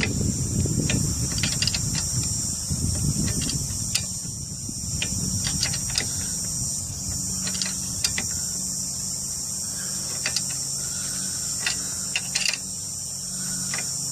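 Scattered sharp metallic clicks from hand tools as a nut is tightened on a car's front lower control arm and ball joint, with rubbing and handling noise in the first few seconds. A steady high insect chirring runs underneath.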